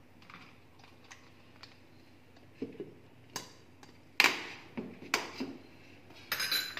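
Clear plastic lid being fitted onto a stainless steel mixer-grinder jar and its clip latches snapped shut: a scatter of sharp plastic clicks and knocks, the loudest about four seconds in, with a quick cluster near the end.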